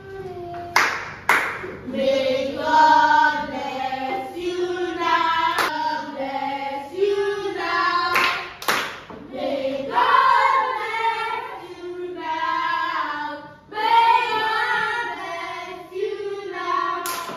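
A group of children and a woman singing a song together, with a few sharp hand claps among the singing.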